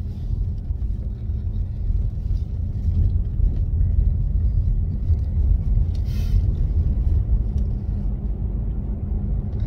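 A moving car, heard from inside the cabin: a steady low rumble of road and engine noise, with a brief hiss about six seconds in.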